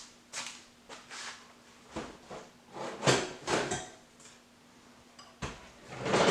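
Metal hand tools clinking and clanking in a string of separate knocks, then a louder, longer rattling clatter near the end.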